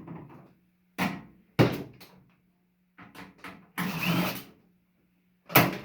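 Knocks and clatter of stripped microwave parts being handled and set down: a few sharp knocks, some light ticks, and a short scraping rustle midway, over a faint steady hum.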